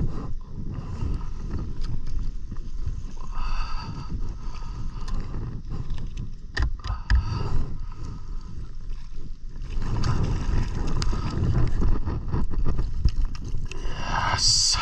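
Wind buffeting the microphone over water lapping against a kayak's hull, with a few short clicks and knocks midway and a brief hissing rush near the end.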